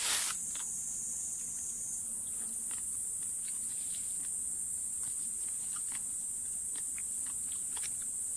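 A steady, high-pitched insect chorus, a little louder in the first couple of seconds. A brief rustle comes right at the start, and faint scattered clicks and rustles follow as berries are picked from the bush.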